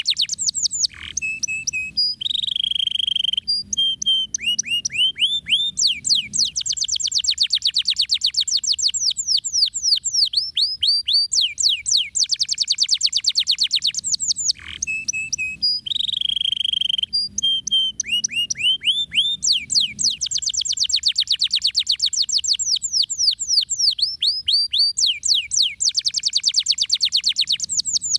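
Domestic canary singing a long, fast song of rapid rolling trills and runs of sweeping notes, broken by short pauses. The same song sequence comes round twice.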